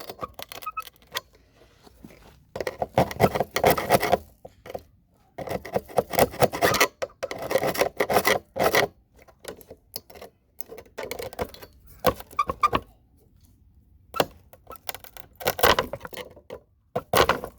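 Flathead screwdriver scraping leftover gold-plated CPU-socket pins off a motherboard: metal scratching and clicking in repeated bursts a second or more long, with short pauses between strokes.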